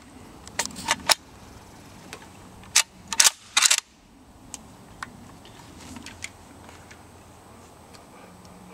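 Metallic clicks and clacks of an AK-pattern rifle being loaded: a few light clicks in the first second as the magazine goes in, then a cluster of louder, sharp clacks around three seconds in as the action is handled, then faint ticks.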